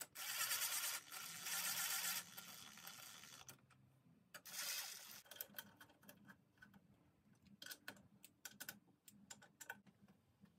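Cordless power driver running in several short bursts, tightening the clamp bolts that hold the aluminium crankcase half to the mill table. Scattered light clicks and taps of tools being handled follow in the second half.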